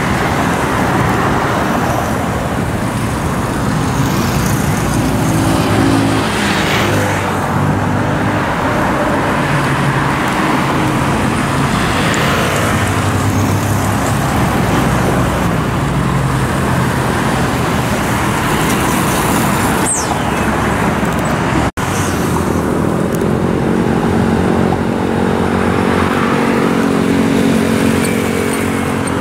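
Road traffic passing close by: a steady stream of cars and small motor scooters, with engines and tyre noise. A scooter engine runs close for the last several seconds. The sound cuts out for an instant about two-thirds of the way through.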